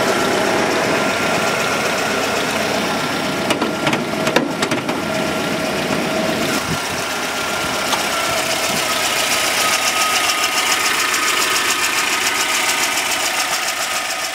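A GAZ Gazelle's 2.9-litre eight-valve inline-four petrol engine idling steadily, with a few light clicks about four seconds in.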